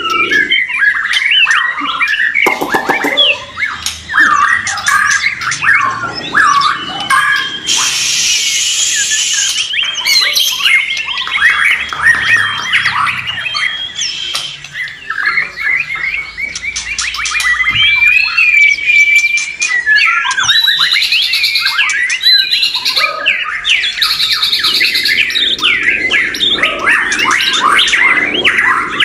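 Several white-rumped shamas singing at once, their loud whistled phrases, fast trills and sweeping notes overlapping continuously, with a harsh rasping call about eight seconds in.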